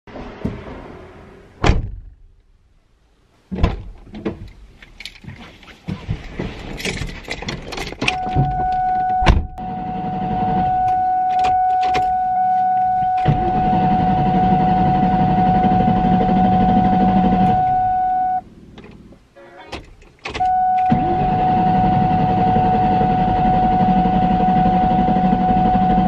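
A 2003–04 Mustang Cobra's supercharged 4.6 L V8 being cranked by the starter in two long tries, with a steady high whine, and never catching. It is a no-start traced to a failed fuel supply with no fuel pressure. A few clicks and knocks from the door and key come first.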